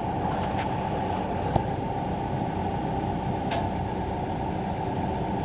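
Heavy diesel engine of the stuck truck or the equipment working beside it, running steadily with a low rumble; a light click sounds about a second and a half in.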